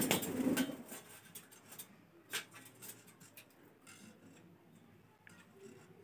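Indian ringneck parrot's wings flapping in a burst of quick beats as it takes off. This is followed by a sharp click and a few faint scattered ticks.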